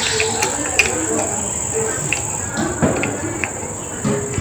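Scattered clicks and light knocks of plastic table-fan parts being handled and fitted, over a steady high-pitched whine.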